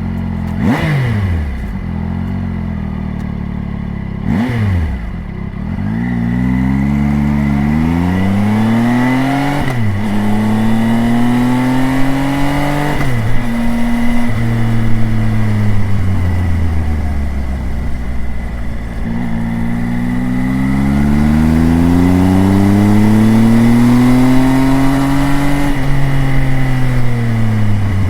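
Triumph Tiger three-cylinder motorcycle engine and exhaust, recorded up close. It idles and is blipped twice in the first few seconds, then pulls away and accelerates through several gears, the pitch rising and dropping at each shift. It slows down near the end.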